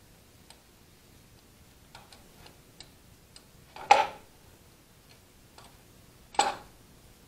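Small metal clicks and taps from a tractor ignition distributor being handled as a gasket is fitted, with two louder sharp clicks about four and six and a half seconds in.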